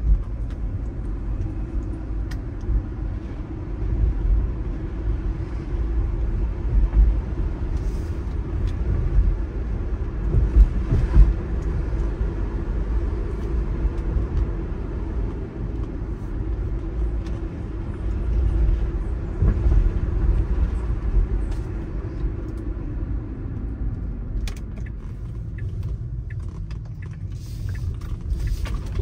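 Car cabin noise while driving: a steady low rumble of road and engine, which eases a little near the end.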